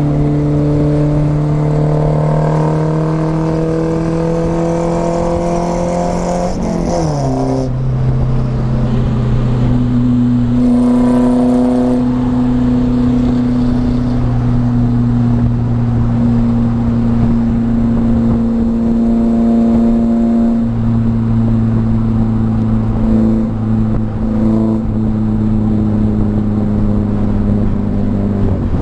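Volvo 242GL engine and exhaust, fitted with a new muffler, while driving. The engine note rises steadily for about six seconds, drops sharply about seven seconds in, then holds a steady drone at a constant pitch.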